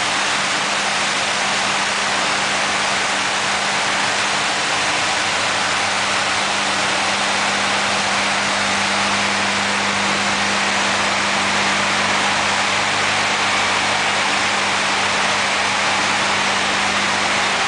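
Cork sawing machine running steadily: an even machine noise with a low, constant hum underneath that does not change.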